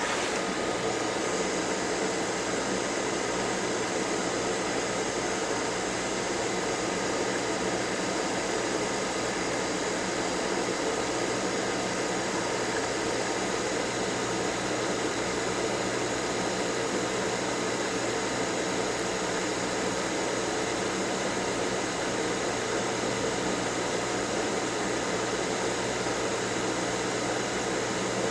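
Steady whir of a small electric motor running on the repair bench, a constant hum that does not change.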